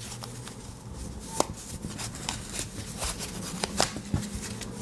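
Handling noise from a USB-C charging cable being looped and held together by hand: scattered light clicks and rubbing, over a steady low hum.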